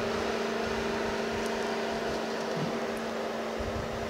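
Steady mechanical hum with a constant low drone over a hiss.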